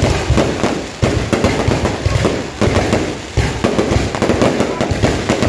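Fireworks going off: a dense, loud run of bangs and crackles, several a second.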